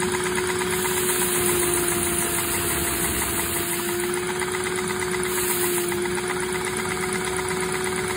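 LEGO 6x6-piston vacuum engine running on a shop vac's suction: the vacuum's steady motor whine and rushing air, with a fast, even clatter from the engine spinning its big flywheel.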